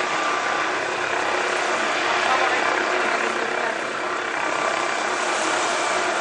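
Helicopter hovering and creeping sideways as it is repositioned onto a yacht's forward helipad, its rotor and turbine running steadily.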